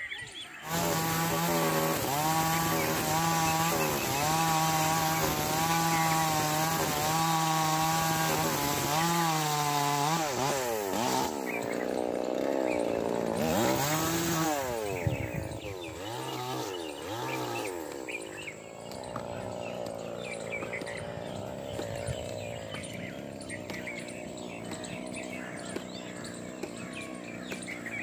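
Two-stroke chainsaw held at full throttle at a steady high pitch as it cuts into a kikar (acacia) branch. About ten seconds in, the revs drop and swing up and down several times. For the last ten seconds it runs quieter.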